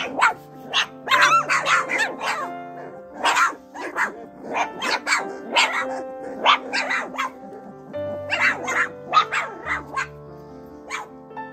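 A litter of four-week-old mini goldendoodle puppies barking and yipping in many short, high bursts, one after another, with a brief lull near the end. Background music plays underneath.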